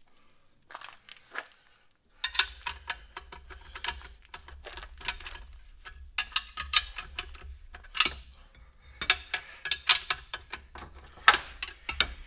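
Hand wrench turning the mounting nuts on a truck's front air brake chamber: quick runs of metal clicks and clinks, starting about two seconds in.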